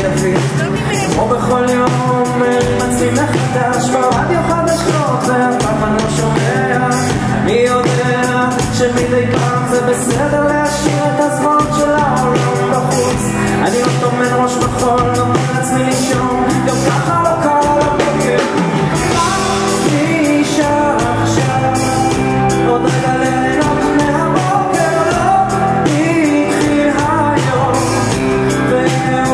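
Live rock band music, with a man singing and strumming an acoustic guitar over the band.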